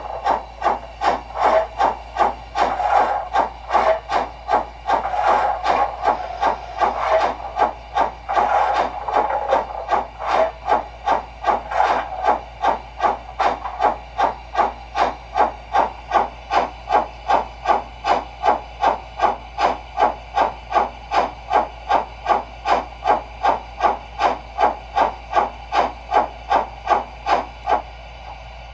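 Sound system of an LGB G-scale HSB Mallet model steam locomotive playing its exhaust chuff, uneven for the first several seconds, then settling to an even beat of about two chuffs a second before cutting off suddenly near the end.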